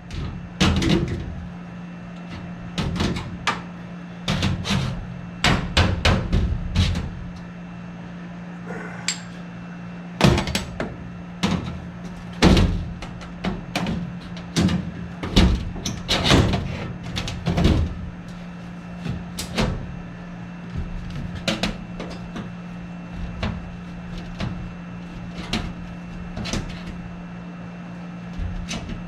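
Irregular knocks, clunks and clatter of objects being moved and handled, over a steady low hum.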